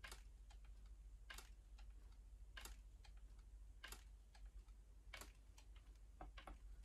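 Faint, regular clicking over near silence: a sharper click about every second and a quarter, with fainter ticks between.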